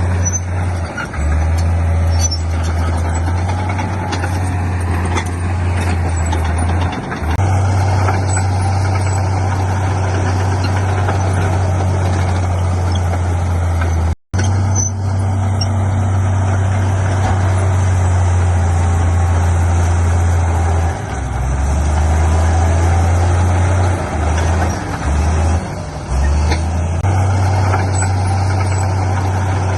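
Heavy diesel engines of earthmoving machinery (bulldozer and dump trucks) running under load, with a steady deep drone whose pitch shifts a few times in the second half. The sound cuts out for an instant about halfway through.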